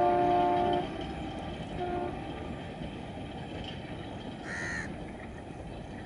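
WDM3A ALCO diesel locomotive's multi-tone horn: a long blast that cuts off about a second in, then one short toot about two seconds in, over the steady distant rumble of the train running. A crow caws once about four and a half seconds in.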